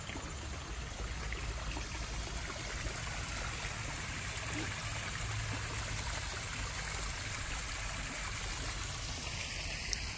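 Small backyard koi pond waterfall: water falling steadily over stacked stones into the pond.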